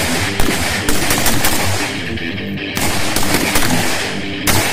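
Several Pindad SS2 V4 5.56×45 mm NATO assault rifles firing on a range, with shots cracking in quick, irregular succession as the rifles overlap. Background music with guitar plays underneath.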